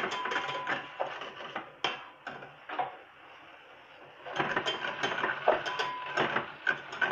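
Wire whisk clinking and scraping against a stainless-steel saucepan as coconut milk is stirred, in quick irregular strokes, with a lull of about a second and a half near the middle.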